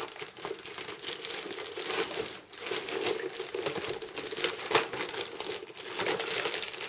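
Clear plastic wrapping crinkling and rustling as hands pull it off a cardboard headset box, a dense crackle with a few sharper crackles.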